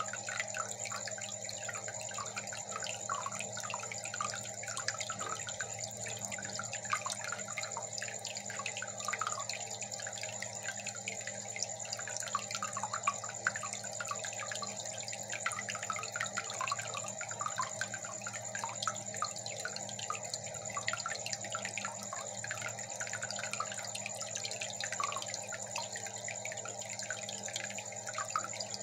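Aquarium water trickling and bubbling without pause, with many small irregular drips and splashes, over a steady low hum and a faint high whine.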